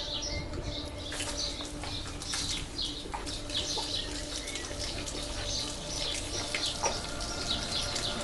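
Milk poured from a plastic jug splashing over a person's head and body and spattering onto the ground, starting about a second in. Birds chirp in the background.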